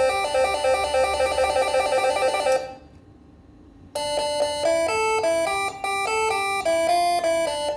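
Telolet horn set, a 24-volt module sounding six horn trumpets, playing a quick tune of several notes at once stepping up and down. The tune breaks off about two and a half seconds in, and after a second's gap a second tune starts with slower stepping notes.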